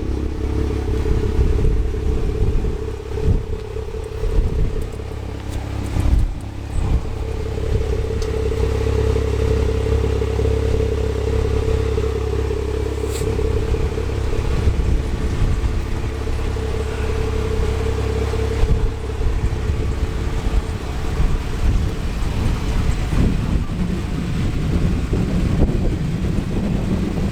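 Wind buffeting the microphone, a heavy fluctuating rumble over a steady low hum, with a few brief knocks.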